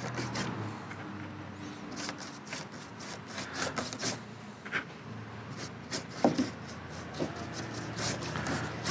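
Paintbrush bristles scrubbing and dabbing thick acrylic paint onto the wooden dollhouse in quick, irregular strokes, over a faint low steady hum.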